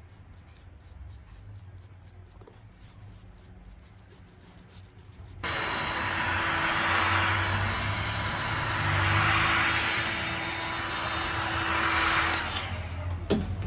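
Handheld electric heat gun switched on about five seconds in, its fan blowing with a steady whine, warming the glued sole flap of a shoe; it dies away about a second before the end. Before it starts there is only a low hum.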